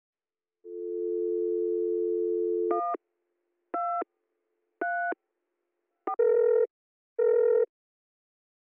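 Telephone call placed: a steady dial tone, then several touch-tone key beeps as a number is dialled, then the ringing tone heard by the caller in short repeated pulses as the call goes through.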